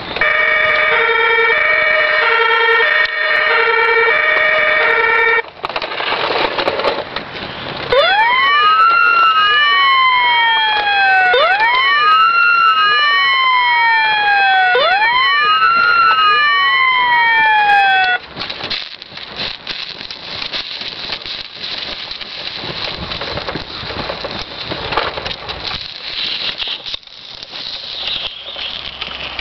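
An electronic two-tone siren alternating between two pitches for about five seconds, then after a short gap a wailing siren sweeping up and down in three long cycles for about ten seconds. For the last third, only an uneven crackling noise.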